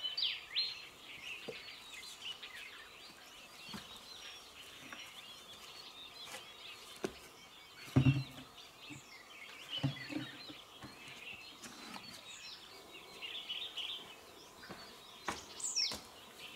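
Wild birds chirping and calling, with a falling whistled call near the start and another near the end. A few dull knocks and scuffs come in the middle as someone clambers over rock.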